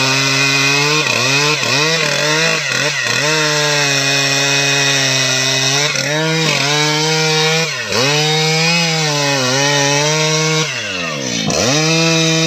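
STIHL MS 881 single-cylinder two-stroke chainsaw at high revs, its chain cutting into a teak trunk. The engine note dips briefly several times in the first three seconds and again around six and eight seconds in, then drops for about a second near the end before climbing back.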